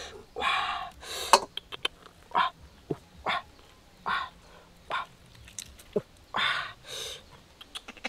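Puppy giving short, high-pitched yelps about once a second, with faint ticks between them.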